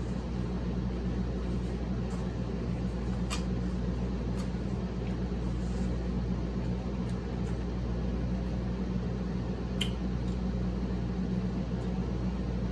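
Steady low hum of room background noise, with quiet eating sounds: a few faint clicks of chewing or cutlery, about three seconds in and again near ten seconds.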